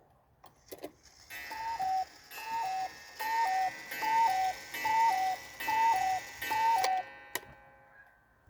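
A 1980s Soviet wooden cuckoo clock calling the cuckoo seven times, each call a higher note dropping to a lower one, about one call a second, with a metallic ringing behind them that dies away after the last. A sharp click of the mechanism comes just before the calls start and another just after they end.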